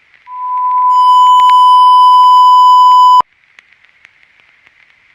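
Loud, steady, single-pitched broadcast test tone. It swells in over a fraction of a second, holds for about three seconds, then cuts off abruptly, over a faint crackly hiss of static.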